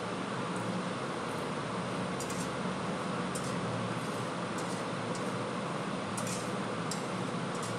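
Bay leaves and dried red chillies frying in hot oil in a steel kadai: a steady sizzle with scattered small crackles as a spatula stirs, over a constant low hum.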